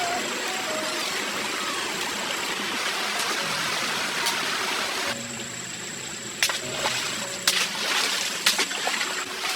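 Mountain stream water rushing steadily, changing abruptly about five seconds in to a quieter flow broken by several sharp splashes.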